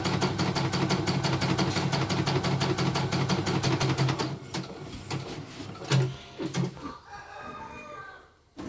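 CNY computerised embroidery machine stitching at speed, a fast, even clatter of needle strokes over a low motor hum, running normally after its repair. The stitching stops about four seconds in, and a few separate mechanical knocks follow as the design finishes.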